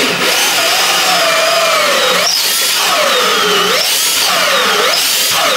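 Milwaukee M18 cordless drill driving a bimetal hole saw through a 2x4. The motor's whine sags as the teeth bite into the wood and jumps back up about three times as the saw is eased back to clear chips.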